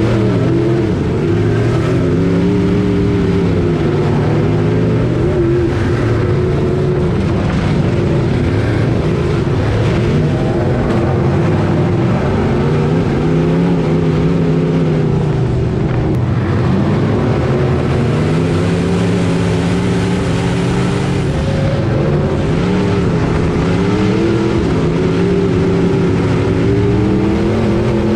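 Hotmod dirt-track race car's engine at racing speed, heard from on board the car. It revs up and backs off over and over, about every five to six seconds, as it laps the oval.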